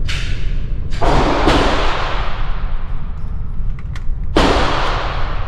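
Four gunshots, the first fainter, the next two about half a second apart and the last about three seconds later. Each one is followed by a long fading echo.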